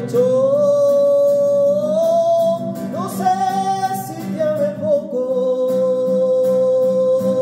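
A man singing a Spanish bolero in long, drawn-out notes, accompanied by a strummed classical guitar.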